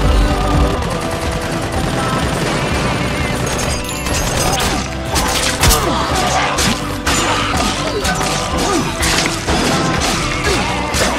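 Gunshots and sharp impact hits from action scenes, many in quick succession in the second half, over background music.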